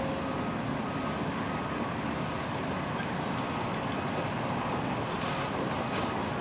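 Case CX350D tracked excavator's diesel engine running steadily under working load as the boom slowly moves a suspended load.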